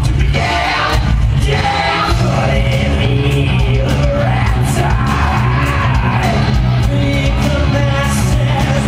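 Loud rock music played by a band with electric guitars, with a voice singing and yelling over it.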